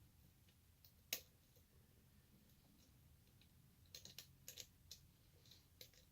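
Faint clicks of a short hook pick and tension wrench working the pins of a shutter lock: one sharper click about a second in, then a cluster of small clicks near the end.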